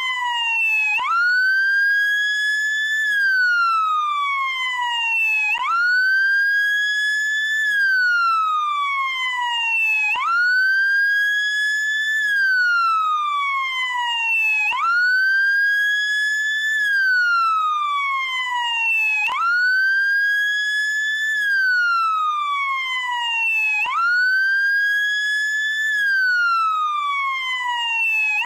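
Wail siren of a SAMU motorcycle ambulance: the tone sweeps up quickly, holds briefly at the top, then slides slowly down. The cycle repeats about every four and a half seconds.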